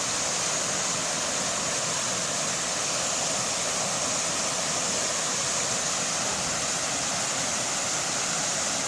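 Waterfall rushing steadily as its water falls through and around large rocks: an even, unbroken hiss.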